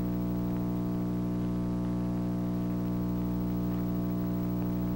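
Music: a single chord held steady without change, then cut off.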